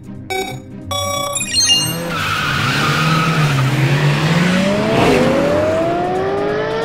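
Race-start countdown beeps, then cartoon race cars launching: tyres squealing and engines revving up in rising whines.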